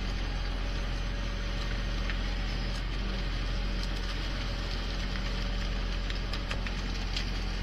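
A fishing boat's engine running with a steady low hum, under the hiss of water splashing as fish thrash in the hauled net, with a few faint clicks.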